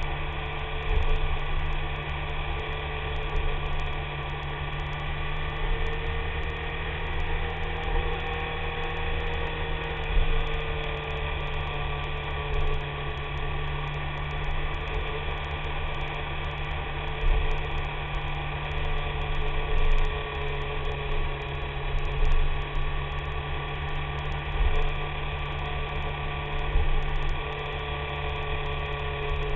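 BMW K1300S motorcycle's inline-four engine running at a steady cruise, a continuous drone with a gentle rise and fall in pitch a few seconds in, over a low rumble of wind and road noise.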